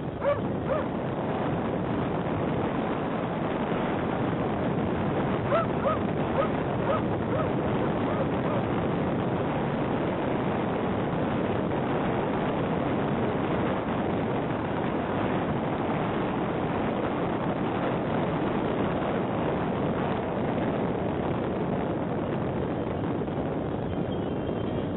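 Wind rushing in through an open car window, with the road noise of the moving car under it: a steady, even rush.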